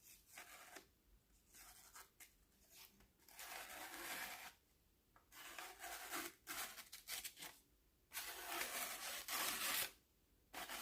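Paper being sliced by a razor-sharp pocket-knife blade with a freshly reprofiled edge. It makes a series of quiet hissing cutting strokes, starting about three seconds in.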